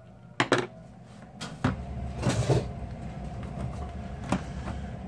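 Tools being handled and set down on a workbench: a few sharp clicks and knocks, with a longer rustle about halfway through, as a screwdriver is put down and a multimeter is fetched.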